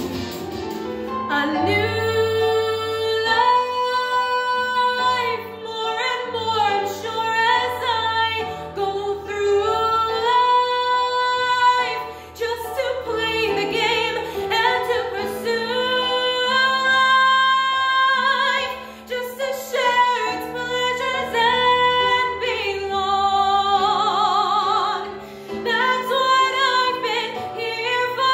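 A woman singing a song solo, holding long notes with vibrato, over an instrumental backing track.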